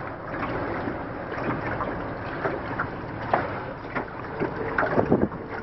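Classic fiberglass runabout underway on a river: a steady rush of motor and water noise, with irregular splashes and slaps of water against the hull that come more often near the end.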